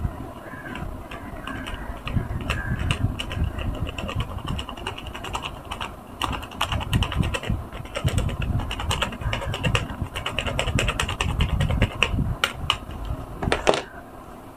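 Big block sponge squeezed by a gloved hand in thick foam of laundry powder and soap: wet squelching with dense crackling of popping suds, with a sharper squelch near the end.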